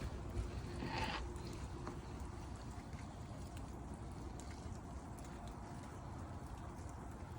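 Steady outdoor wash of rain and wet snow falling, with scattered light drips and ticks over a low rumble, and a brief louder sound about a second in.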